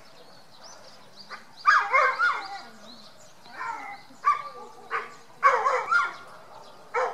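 Dog barking in irregular bursts, about six barks with uneven gaps between them.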